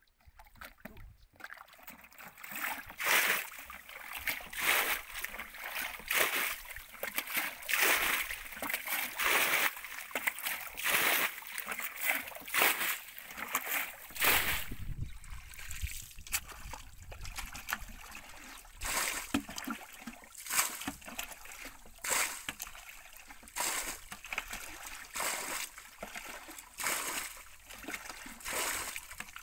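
Hands splashing and sloshing through muddy water in quick, irregular splashes that start about a second in, as when digging in a drying mud pool for catfish.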